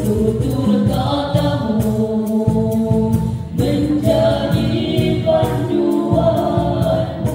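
Boys' nasyid group singing in several-part harmony over a steady percussion beat.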